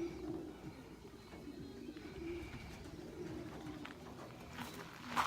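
Domestic racing pigeons cooing: low, wavering coos from several birds overlapping.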